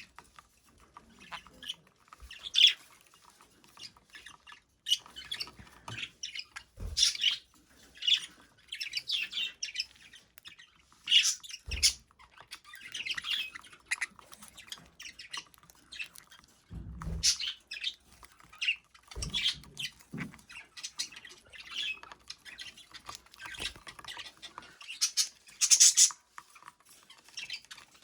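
Pet budgerigar chattering in short, irregular bursts of high chirps, with a few brief low knocks now and then.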